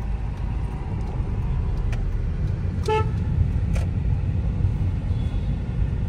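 Steady low road and engine rumble heard inside a moving Hyundai car in traffic, with a short vehicle horn toot about three seconds in.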